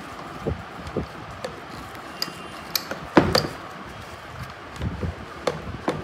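Metal clicks and knocks of a crimping die being fitted and seated in the steel head of a cordless hydraulic cable crimping tool, about ten short knocks, the loudest just after three seconds in.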